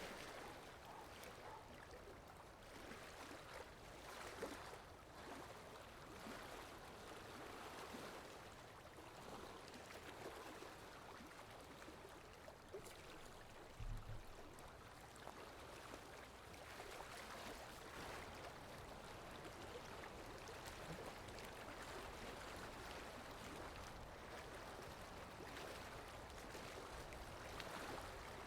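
Faint, steady wash of water, with small waves lapping. A single brief low thump comes about halfway through.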